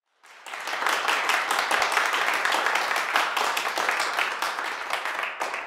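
Audience applauding, a dense patter of many hands that swells quickly at the start and begins to die away near the end.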